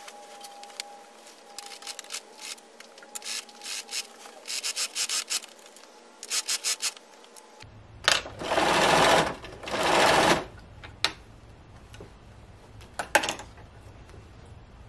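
Bernina sewing machine running in two short bursts of stitching, each about a second long, past the middle. Before them come light clicks and rattles as the fabric is handled at the machine.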